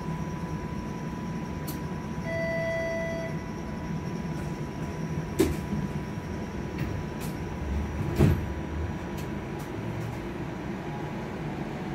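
TTC streetcar running, heard from inside the car: a steady low rumble under a faint steady high whine. A one-second electronic beep sounds about two seconds in, and two sharp clunks follow about five and eight seconds in, the second the loudest.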